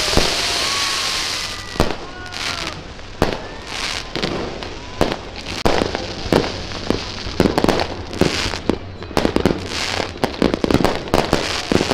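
Fireworks: a fountain firework hissing steadily for about the first second and a half, then a rapid, irregular string of bangs and crackles from aerial shells, with a few short rising whistles.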